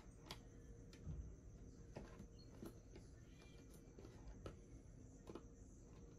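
Near silence, with faint scattered clicks and taps as hands press a laptop's plastic bottom cover down onto the case and work along its edges.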